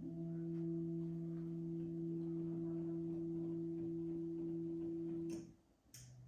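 Z-axis stepper motors of a Lowrider V3 CNC router homing: a steady pitched whine that stops with a click about five seconds in as the axis reaches its limit switch. Near the end, after another click, a shorter, lower-pitched motor whine starts.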